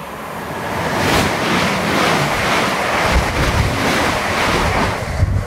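Passenger train passing through the station at speed close by: a loud rush of air and wheel noise that builds over the first second, holds, and eases near the end, with wind from the train buffeting the microphone.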